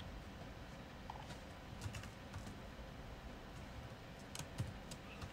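A few faint, scattered computer keyboard keystrokes over a low steady background hum.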